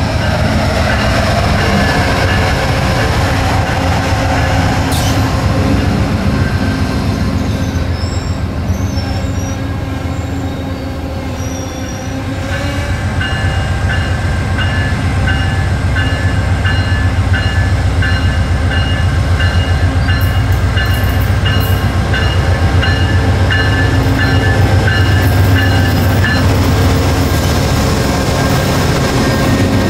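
VIA Rail GE P42DC diesel locomotive No. 909 passing at the head of a passenger train: a loud, steady engine rumble with the noise of the wheels on the rails. From about twelve seconds in, a bell rings steadily at roughly two strokes a second, stopping a few seconds before the end.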